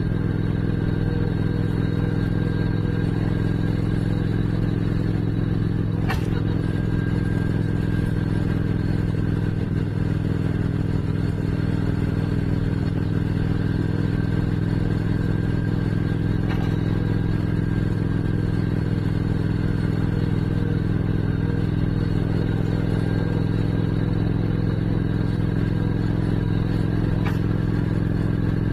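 Motorcycle engine running steadily while cruising at a constant speed, with no change in pitch.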